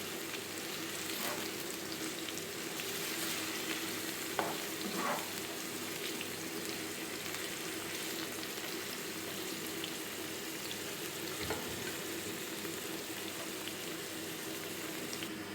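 Marinated chicken pieces sizzling as they shallow-fry in a few tablespoons of oil, with a steady hiss and occasional short scrapes or knocks of a utensil stirring in the pan.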